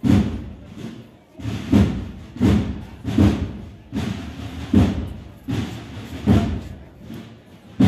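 Bass drum beating a slow, even marching pulse, one heavy stroke about every three-quarters of a second with a short ring after each, some strokes lighter than others.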